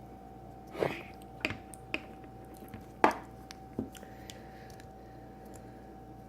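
Small hard plastic clicks and taps as a toy action figure's snap-on fist accessory is worked against its pegs without snapping into place, about five short knocks with the sharpest about three seconds in, over a faint steady hum.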